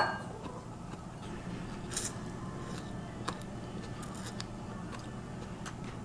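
Quiet chewing and eating sounds from a noodle salad meal, with a few faint clicks and short crunchy rustles, over a steady low room hum.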